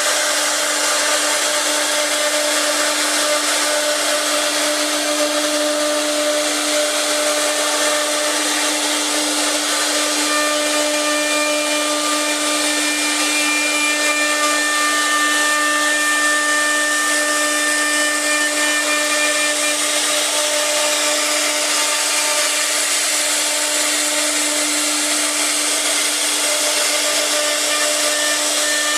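CC-B1325B CNC wood router's spindle running and cutting wood, a steady hum with a constant cutting noise that doesn't change.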